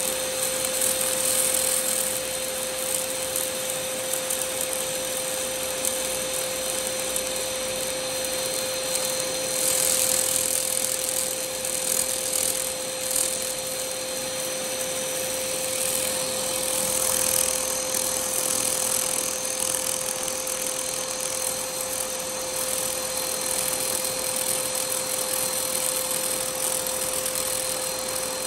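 100 W laser cleaner working over a nickel-aluminium bronze boat propeller caked with marine growth: a steady buzzing tone under a hiss that swells louder about a second, ten seconds and seventeen seconds in.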